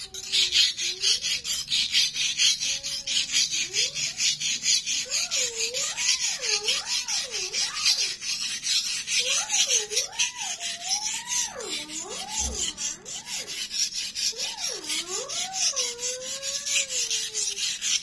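Steel knife blade stroked rapidly back and forth on a wet whetstone, an even rasping scrape of many quick strokes, sharpening the second side of a freshly hardened cheap knife's edge.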